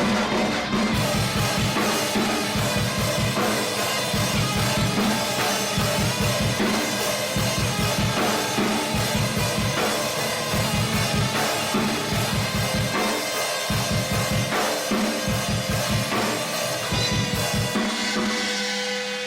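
Deathcore song with rapid, driving kick-drum hits under a full drum kit. Near the end the drums stop and a single held tone rings on.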